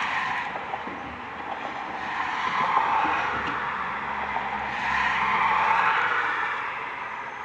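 Heil 5000 rear-loader garbage truck running. Its engine and machinery noise swells and fades three times.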